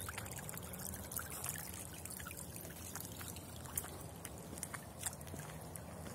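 Irrigation water running along a narrow concrete ditch, a steady trickle with scattered small splashes and drips.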